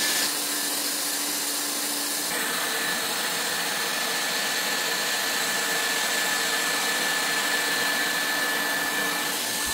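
Hot-air plastic welding gun blowing steadily while round polypropylene filler rod is fed through its speed-welding nozzle: a steady rushing hiss of air with a thin, constant high whine.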